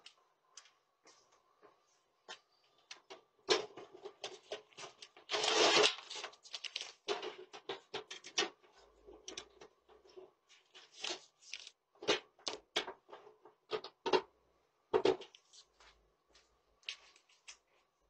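Irregular clicks and knocks of a wall-mounted mailbox being opened and handled as paper mail is pulled out and rustles. The longest, loudest rustle comes about six seconds in.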